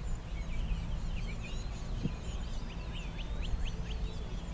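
Songbirds chirping and singing, many short calls overlapping, with a quick run of falling notes about three seconds in, over a steady low rumble.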